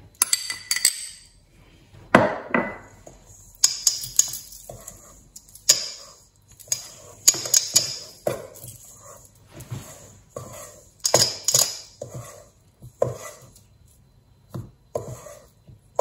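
A metal spoon scraping and knocking against a stainless steel mixing bowl in irregular strokes, stirring icing sugar into rubbed-in shortcrust pastry crumbs. The bowl rings briefly after the sharper knocks.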